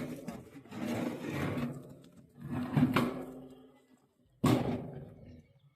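A pig squealing in three loud, harsh cries, the last one starting sharply about four and a half seconds in.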